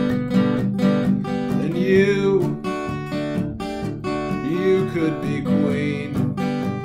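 Acoustic guitar strummed steadily, with a wordless sung note that rises and falls, twice, about two seconds and five seconds in.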